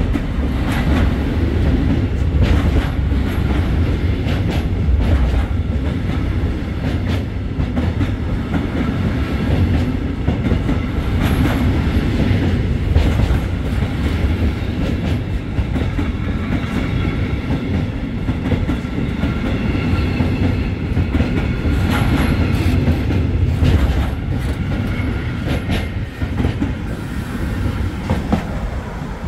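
Freight wagons loaded with timber logs rolling slowly past, with a steady low rumble and the clickety-clack of wheels over rail joints. A faint squeal from the wheels comes and goes through the middle stretch, and the sound eases slightly as the last wagon goes by near the end.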